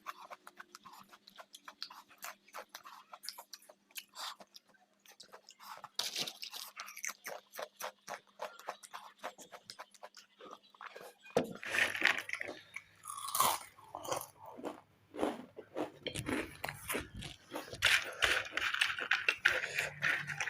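Close-up crunching and chewing of crisp fried snack chips: many quick sharp crunches, sparse at first and growing louder and denser a little past halfway.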